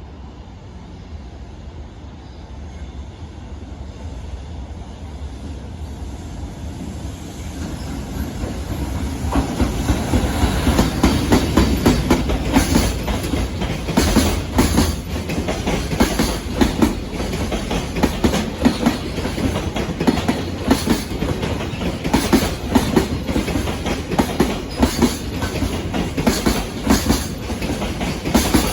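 A JR Freight train passing close by. Its rumble builds over the first several seconds as it approaches. Then the freight wagons' wheels click rhythmically over the rail joints as the train rolls past.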